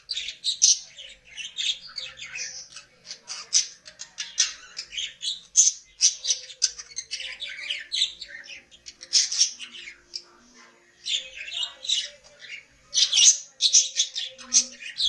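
Budgerigars chattering and warbling: a continuous stream of quick high chirps and squawks.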